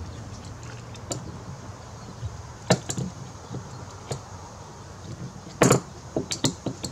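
Scattered short clicks and knocks, with a louder knock about five and a half seconds in and a quick run of clicks near the end, typical of tools and parts being handled while working on a car.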